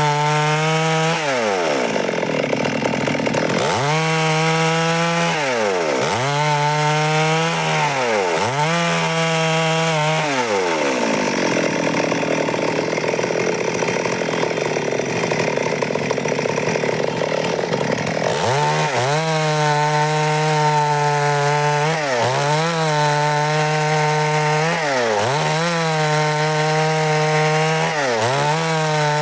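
Stihl two-stroke chainsaw cutting through a wooden block. The engine runs at high revs and dips in speed and picks up again many times, about every two seconds. For several seconds in the middle its steady note gives way to a rougher sawing noise.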